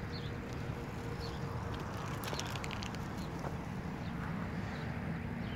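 Steady wind and road rumble on a moving microphone, with faint short bird chirps about once a second and a brief rattle of clicks about two and a half seconds in.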